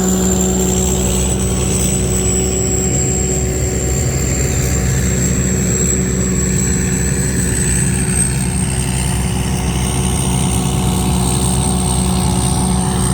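Combine harvester's diesel engine running steadily under load while harvesting rice, with a steady high whine that drifts slightly in pitch above the engine note.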